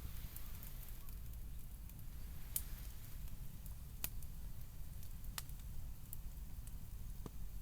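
Wood fire burning, with a few separate sharp crackles and pops over a low, steady rumble.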